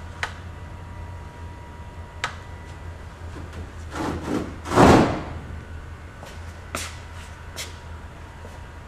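Workshop background: a steady low hum and a faint steady tone, broken by a few sharp clicks and one brief, louder noise about five seconds in.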